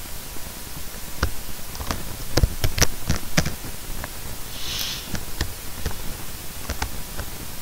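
Computer keyboard keys clicking as a search phrase is typed, with a quick flurry of keystrokes about two to three seconds in, over a steady hiss. A short breathy sound comes about five seconds in.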